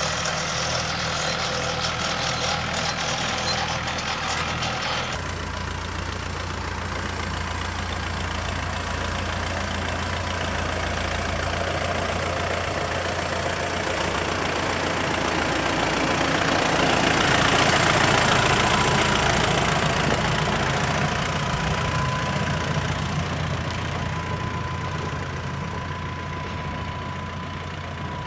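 Heavy farm vehicle engine running steadily, its note changing about five seconds in and swelling louder for a few seconds past the middle before easing off.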